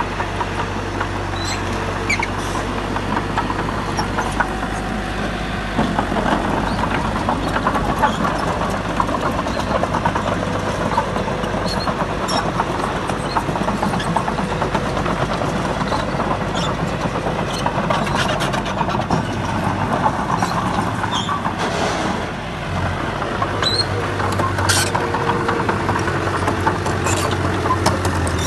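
Diesel engine of heavy earthmoving machinery running steadily under work, with scattered clicks and knocks over it and a brief drop in level about three quarters of the way through.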